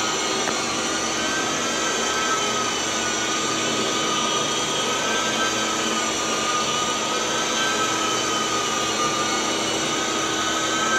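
Rotovac DHX carpet extractor and rotary cleaning wand running steadily while cleaning carpet: a continuous vacuum-motor whine whose pitch wavers slightly.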